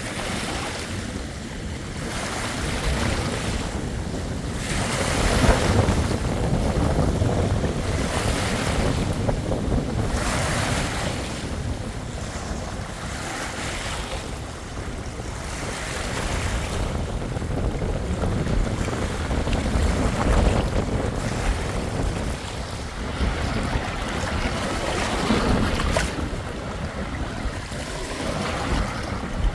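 Waves washing in and drawing back in repeated surges, with wind buffeting the microphone as a low rumble underneath.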